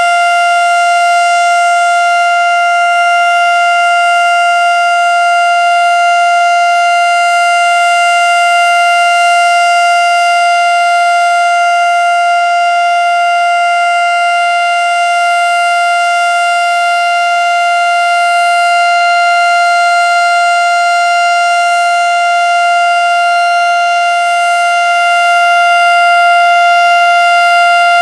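Federal Signal STH-10A outdoor warning siren sounding its steady alert signal: one loud held tone at constant pitch, with the volume easing and swelling slightly.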